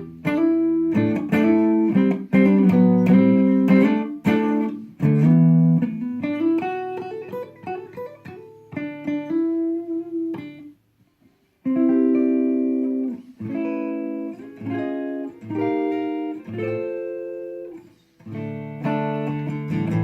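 Gibson Les Paul Special electric guitar played clean on its stock neck humbucker (rhythm pickup position): strummed chords and picked single notes, with a pause of about a second partway through.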